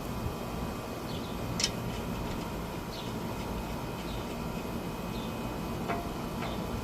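A steady low rumble of background noise with faint high chirps about once a second. A sharp click comes about one and a half seconds in and two lighter clicks near the end, as a brake caliper bolt is fitted by hand.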